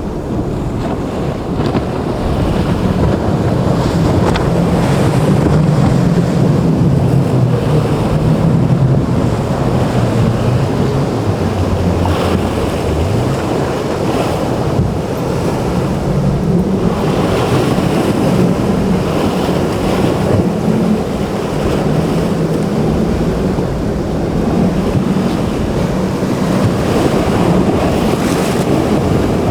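Boat engines running in rough surf, a low hum that shifts in pitch as they throttle, over breaking waves and heavy wind on the microphone.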